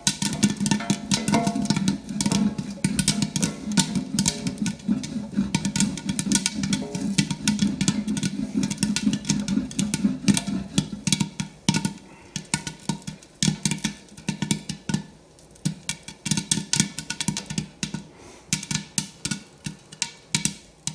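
Popcorn kernels popping in a lidded wok, many sharp pops at first, thinning to scattered single pops in the second half. The slowing popping is the sign that the batch is nearly done.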